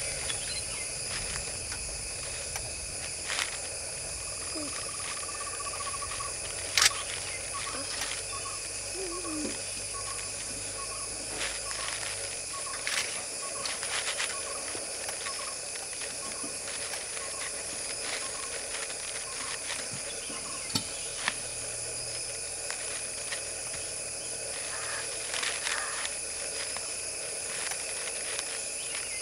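Steady drone of insects (crickets or cicadas). A bird calls a short hollow note over and over, roughly twice a second, from about four seconds in until past the middle. A few sharp clicks fall here and there, the loudest about seven seconds in.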